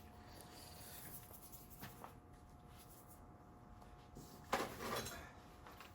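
Metal hand tools being handled: a few light clicks, then a short clattering rattle about four and a half seconds in.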